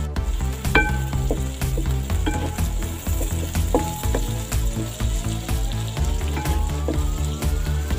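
Sliced onions sizzling as they fry in coconut oil in an aluminium pot, stirred with a wooden spatula. A few sharp knocks of the spatula against the pot ring out briefly.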